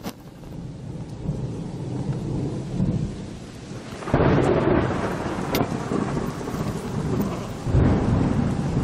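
Thunderstorm sound effect: steady rain with rolling thunder that fades in, swells into a loud rumble about four seconds in and rumbles again near the end.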